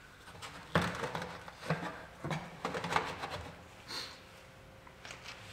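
A handful of sharp knocks and clinks, about six of them from about a second in to three seconds, as tools and metal parts are handled while working on the vehicle.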